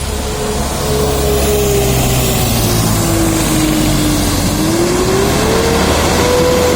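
A bus engine running, with a loud single-pitched whine or tone over it that sinks lower through the middle and rises again near the end.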